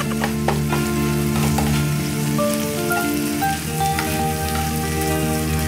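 Shrimp frying in garlic butter in a pan, sizzling steadily, with a few light scrapes and taps as a plastic slotted spatula stirs them. Background music with held notes plays underneath.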